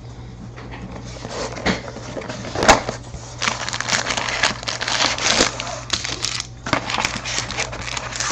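Packaging of a trading-card box crinkling and crackling as it is handled and opened, with scattered clicks and one sharp snap about two and a half seconds in.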